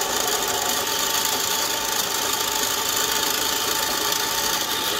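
Benchtop drill press running steadily, its twist bit drilling into quarter-inch steel bar stock clamped in a drill-press vise.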